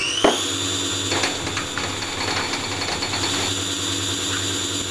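High-pitched whine of a small electric motor running at a steady speed, having just come up to speed. A sharp click comes just after the start, and light clicks and rattles follow.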